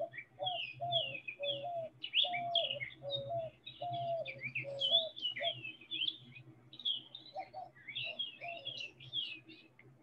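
Recorded song of a white-winged dove: a series of short, hooting coos, a couple each second, with higher bird chirps over them. It stops shortly before the end.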